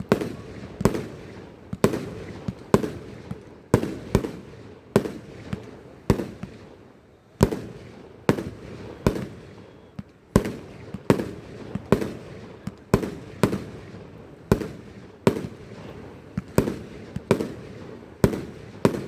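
Fireworks going off: a steady run of sharp bangs about one a second, some in quick pairs, each fading off in an echo.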